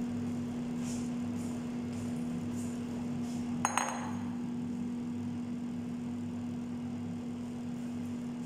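Philips air fryer running with a steady electric hum. About three and a half seconds in, a glass bowl is set down on the stone countertop with a short, ringing double clink.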